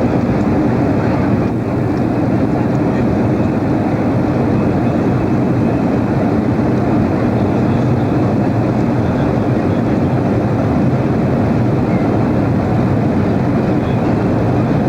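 Jet airliner's engines and airflow heard from inside the passenger cabin during take-off: a loud, steady noise, heaviest in the low range, holding even throughout.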